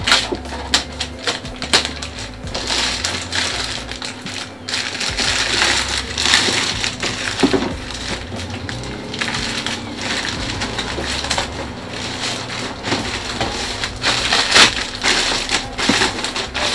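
Clear plastic wrapping crinkling and rustling, and packing tape being torn, as a parcel is unwrapped by hand: a dense run of crackles and small snaps.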